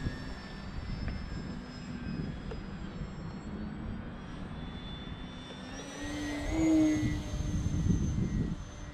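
Multiplex AcroMaster Pro electric RC plane flying overhead: the whine of its motor and propeller drifts in pitch, then rises and grows louder about six seconds in. Gusts of wind rumble on the microphone throughout.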